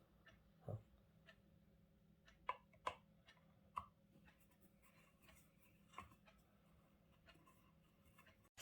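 Faint, scattered clicks and ticks, about five or six in all, of a screw and screwdriver being worked into an electric iron's plastic housing, with near silence between them.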